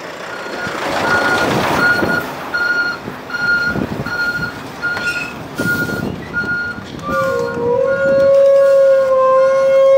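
Heavy truck's reversing alarm beeping evenly, about one and a half beeps a second, over engine and rumbling noise as the rig manoeuvres. From about seven seconds in, a steady lower-pitched tone sounds alongside it.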